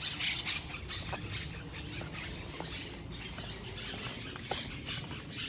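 Footsteps crunching and rustling on a dry, leaf-strewn dirt path, in irregular bursts, with a few short faint squeaks.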